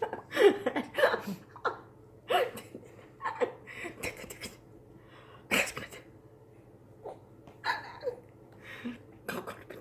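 Short bursts of laughter and breathy vocal sounds, a dozen or so separate bursts, some falling in pitch.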